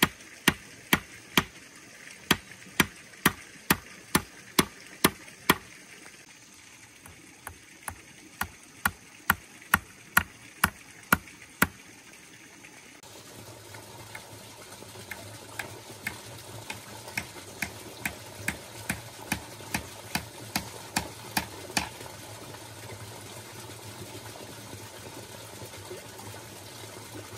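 Repeated sharp knocks of a hand tool striking, at an even pace of about one and a half to two a second, with a short pause in the middle. Fainter knocks follow at the same pace over a steady background noise, then stop about two thirds of the way through, leaving only the steady noise.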